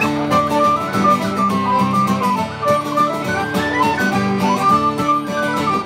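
Irish folk band playing an instrumental passage: a tin whistle carries a quick stepping melody over strummed acoustic guitar, with accordion, fiddle and bodhrán.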